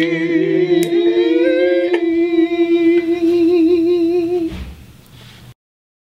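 Unaccompanied voices singing the final held note of a song, one voice sustaining a long wavering tone while another slides upward beneath it. The note ends about four and a half seconds in and a faint tail then cuts off abruptly to silence.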